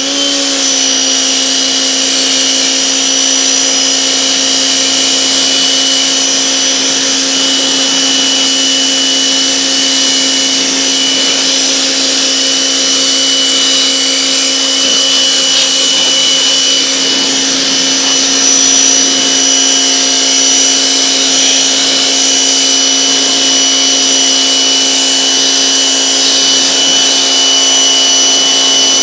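Portland 1750 PSI electric pressure washer starting up with a quick rising whine, then running steadily: a motor hum with a high whine over it and the hiss of the water jet on wooden deck boards.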